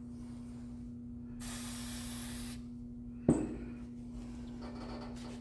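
A one-second hiss of an aerosol spray can, followed about a second later by a single sharp knock with a brief ring, over a steady low hum.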